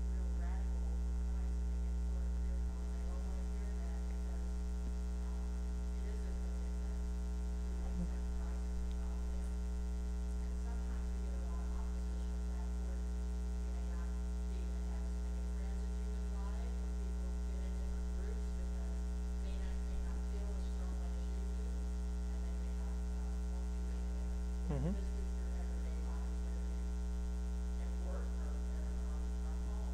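Steady electrical mains hum from the recording chain, with faint, indistinct voices far from the microphone.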